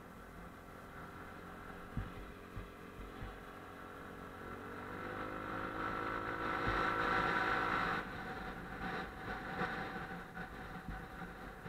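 Motorcycle engine under way, climbing in pitch as it pulls for a few seconds mid-way, then dropping off sharply as the throttle eases. A couple of brief knocks about two seconds in.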